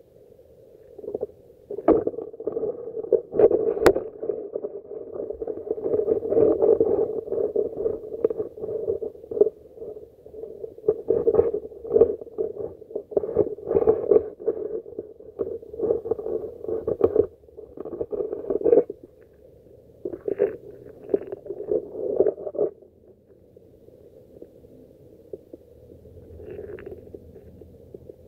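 Muffled, irregular underwater rumbling and surging from a phone's microphone held submerged on a selfie stick, with a few sharp knocks from handling; it eases to a quieter steady rumble near the end.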